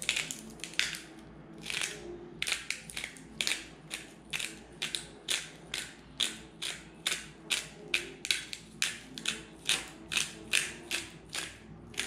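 Hand-twisted spice grinder set to its finest grind, cranked in a steady rhythm of short gritty rasps, about two to three a second.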